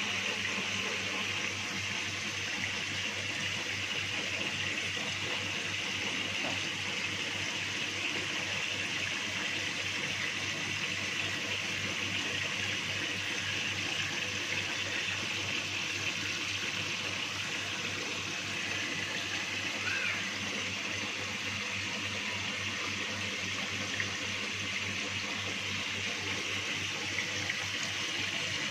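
Steady running and splashing water from the inflow of a recirculating fish-tank system, pouring into the tank, with a low steady hum underneath.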